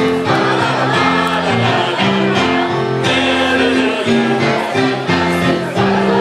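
A group of carolers singing a Christmas song in chorus over instrumental backing music.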